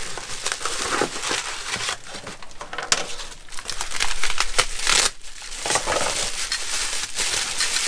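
Brown packing paper and bubble wrap crinkling and rustling as a wrapped item is pulled out and handled, with many sharp crackles.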